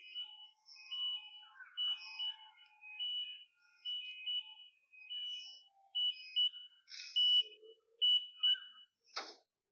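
A high electronic beeper sounding in short repeated beeps, often in pairs, about once a second, with a sharp knock near the end.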